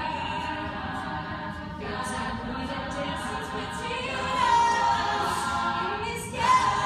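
All-female a cappella group singing in layered harmony, voices only. The singing swells louder about four and a half seconds in and again near the end.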